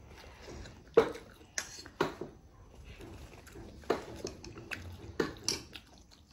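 Wooden chopsticks clicking and knocking against a plastic hotpot bowl while picking up noodles: about half a dozen sharp clicks, the loudest about a second in.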